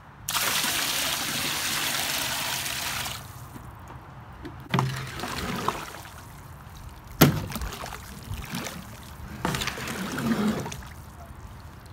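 Wet clay slurry swishing and sloshing as a steel garden rake is dragged through it in a metal wheelbarrow, with a few sharp knocks of the rake against the wheelbarrow, the loudest about seven seconds in.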